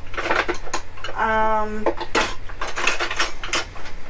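Cutlery clattering and clinking as utensils are rummaged through in a kitchen drawer. A brief steady tone sounds a little over a second in.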